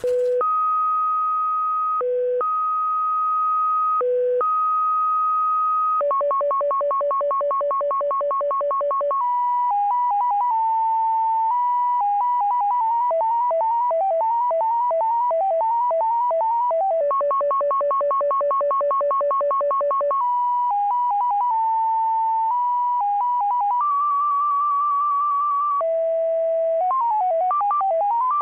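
XPA1 number station's 17-tone MFSK data signal, received over shortwave in upper sideband: a string of pure beeping tones that jump between pitches. It opens with a steady tone broken twice by a lower one, then runs into rapid two-tone alternation and fast stepping and warbling tone sequences.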